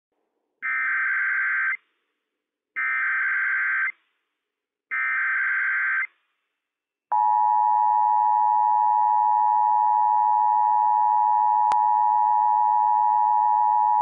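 Emergency Alert System header: three short bursts of warbling digital data tones, each about a second long, then a steady electronic attention tone that starts about seven seconds in and holds. Together they mark the start of a Required Monthly Test broadcast over NOAA Weather Radio. A faint click comes partway through the attention tone.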